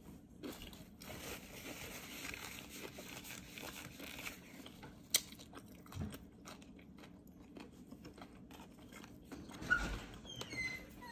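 Faint close-up chewing and crunching of fried Chinese takeout food, with small mouth clicks and one sharp click about five seconds in.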